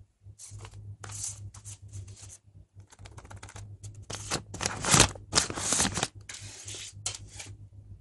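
Rustling and scratching of packaging being handled as a new smartphone is unwrapped, in irregular bursts that are loudest about five seconds in.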